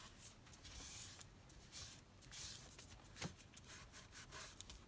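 Faint rubbing and swishing of a wad of tissue pressed and smoothed over freshly wet-glued copy paper, coming in soft strokes, with one small click about three seconds in.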